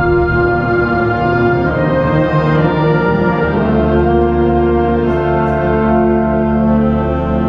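Symphonic wind band playing full, sustained chords, with brass prominent. The held chord shifts to a new one about halfway through.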